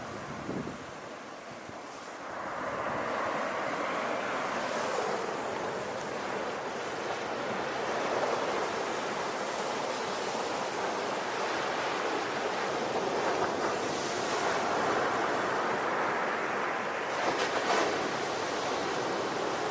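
Sea waves breaking and washing onto the shore, a continuous rush of surf that swells up about two seconds in and stays full.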